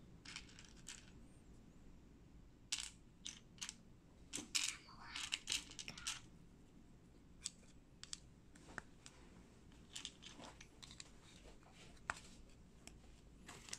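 Small plastic Lego-compatible building bricks clicking and rattling as they are picked from a loose pile and pressed onto a model. A quick run of clicks comes a few seconds in, then scattered single clicks.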